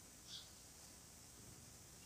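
Near silence: faint room hiss, with one brief, faint high chirp about a third of a second in.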